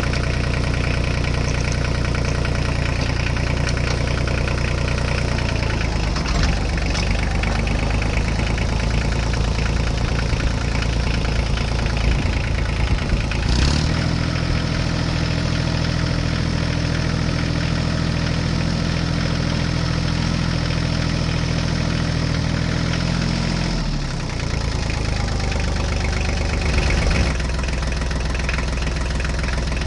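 Truck engine idling steadily, a sound effect laid over the picture of a toy truck. Its note shifts abruptly several times, about a fifth of the way in, near the middle and twice near the end.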